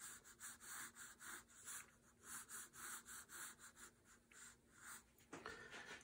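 Faint, quick pencil strokes on paper: a blunt pencil scratching out light construction lines, several short strokes a second.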